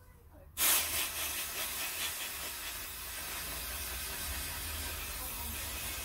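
Aerosol can of brake cleaner spraying in one long, steady hiss that starts suddenly about half a second in, washing flux off a freshly soldered circuit board.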